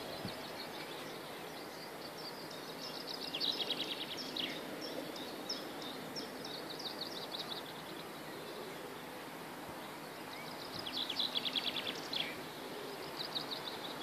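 Songbirds singing outdoors, with short high phrases throughout over a steady background hiss. The loudest parts are two fast trills, about three seconds in and again about eleven seconds in, each ending in a quick downward sweep.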